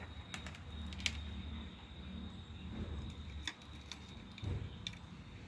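A few faint, sharp clicks and knocks of a power plug and wires being handled and connected to a switch-mode power supply, over a steady low hum and a thin steady high whine.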